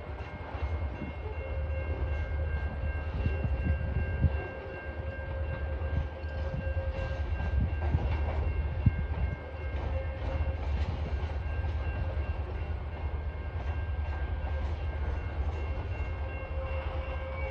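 TasRail freight train wagons rolling past on a curve: a steady low rumble with clicks of the wheels. From about a second in, a thin steady high-pitched squeal or ringing tone runs through it.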